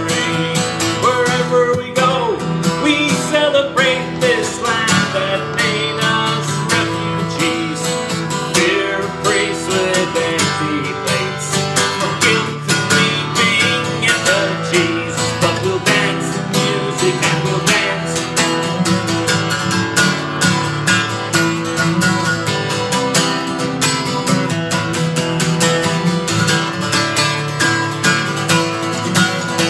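Acoustic guitar strummed in a steady rhythm, with a wordless sung melody over it through the first part.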